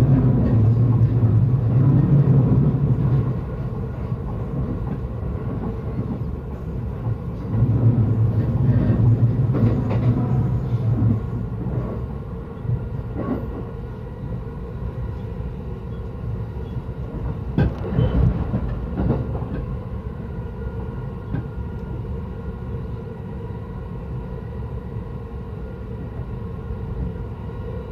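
JR Yokosuka Line electric commuter train running along the track, heard from inside the car: a steady rumble with heavier surges early on and again a few seconds later, and a few sharp wheel clicks near the middle. It grows quieter toward the end.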